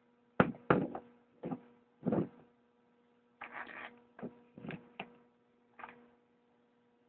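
Old starter motor out of a 2005 Yamaha R1, bench-tested off a battery, spun up in about nine short bursts of under half a second each, every one dying away quickly, over a faint steady hum.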